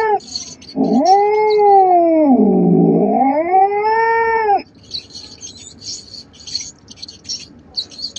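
Domestic cat yowling: one long drawn-out caterwaul, starting about a second in and lasting nearly four seconds, its pitch rising and falling twice. After the call, fainter high-pitched ticking fills the rest.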